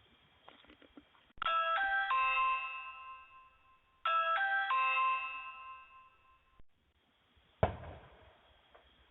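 Ring video doorbell chime played twice, about two and a half seconds apart, each a quick run of three notes that rings on and fades. A sharp thump near the end.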